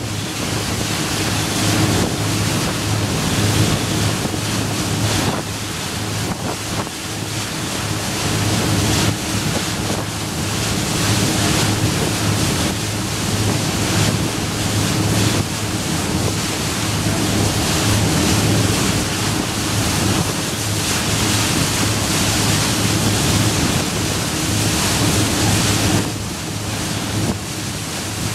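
Boat engine running steadily under way with a low hum, under wind buffeting the microphone and water rushing past the hull.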